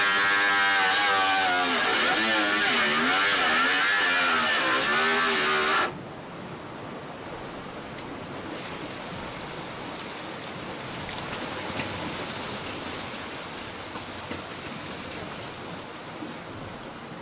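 A power tool cutting carbon-fibre strips, its motor pitch sagging and recovering under load, stops abruptly about six seconds in. After that, the steady hiss of the yacht moving through the sea.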